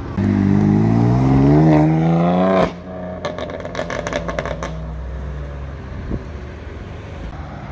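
A car engine accelerating hard, its pitch climbing steadily, cut off abruptly about two and a half seconds in. A quieter engine hum with a quick run of sharp crackles follows.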